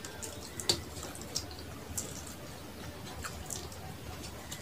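Wet eating sounds: fingers picking through rice and fish curry on a plate, and chewing, with a few soft scattered clicks and smacks, the sharpest under a second in.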